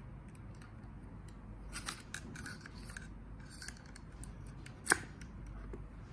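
Hand tapener (plant-tying tool) being handled: a series of light metallic clicks and scrapes from its spring-loaded metal jaws and tape guide, then one sharp metallic snap about five seconds in.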